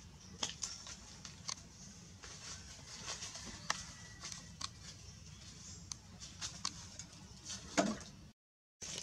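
Dry fallen leaves crackling and rustling in scattered short, sharp clicks as macaques move over leaf-strewn sandy ground, with a steady low hum underneath. The sound cuts out for a moment near the end.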